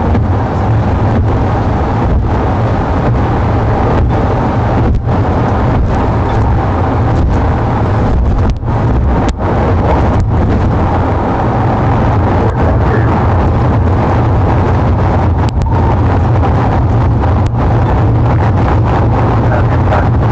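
Steady road noise inside a police patrol car at freeway speed: engine, tyre and wind noise with a deep rumble, briefly dipping a few times.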